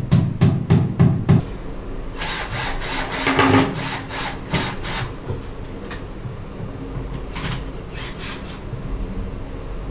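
Background music with a steady beat that stops about a second and a half in, then irregular scraping and rubbing strokes of hand work at the wall during the fitting of a wall-mounted dish rack.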